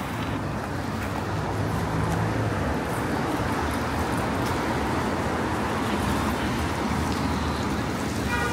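City street traffic: cars passing with a steady wash of engine and road noise.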